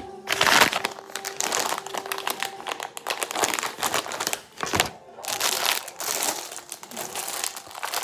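Clear plastic packaging and zip bags of craft supplies crinkling as they are handled and pulled about, loudest about half a second in, with a short pause about five seconds in.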